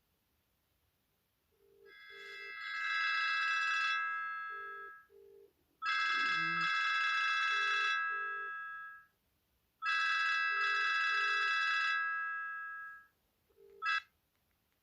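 BenQ Siemens AL21 mobile phone ringing with an incoming call: its ringtone sounds in three bursts of about three seconds, the first swelling in volume, then breaks off briefly near the end.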